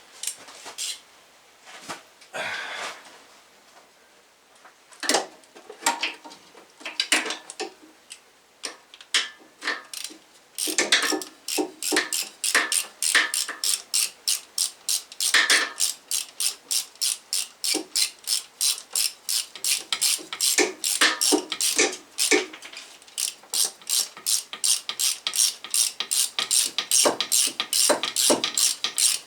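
Hand ratchet wrench clicking as bolts are run in on an alternator mount. A few scattered clicks and knocks come first, then a long, even run of quick ratchet clicks from about a third of the way in.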